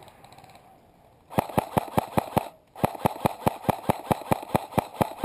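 An airsoft rifle firing a long string of rapid single shots, about six sharp cracks a second, starting about a second in, with a short break midway.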